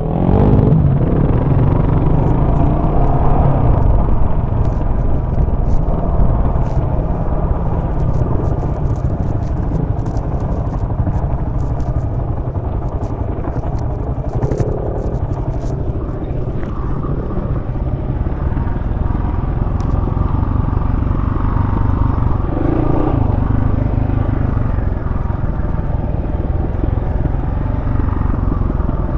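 Dual-sport motorcycle engine running steadily as the bike rides a rough dirt trail, heard from the bike itself, with scattered light ticks through the first half.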